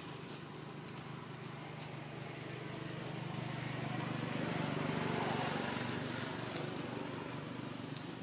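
A motor vehicle passing by: its engine grows louder to a peak about five seconds in, then fades away.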